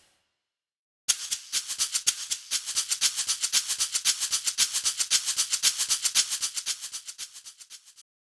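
A rattling sound effect: a fast, even run of dry shaking clicks, about seven a second, that starts about a second in and fades out near the end.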